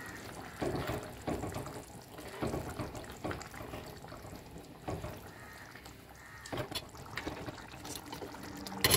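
Metal spoon stirring a thick fish curry gravy in a pot: soft wet sloshing and slurping of the sauce with scattered light scrapes and taps of the spoon against the pot.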